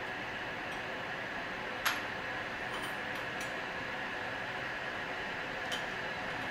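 A sharp porcelain clink about two seconds in, then a few light ticks as a metal tea scoop knocks against a porcelain teapot while loose leaf tea is tipped in, over a steady fan-like hiss.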